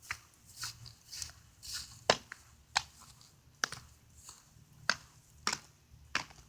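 A string of sharp, short taps or clicks, roughly one every half second to a second and unevenly spaced, with faint rustling between them.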